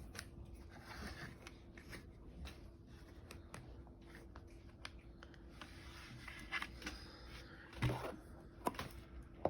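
Faint rustling and small clicks of a plastic fashion doll being handled and its articulated limbs posed, with a louder knock about eight seconds in.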